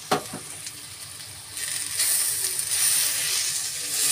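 A spatula stirring fried onions, grated coconut and coriander in a stainless-steel kadai, with a sizzling hiss and the spatula scraping the pan. A single knock of the spatula on the pan comes at the very start, and the scraping and sizzling grow much louder about a second and a half in, when the stirring begins.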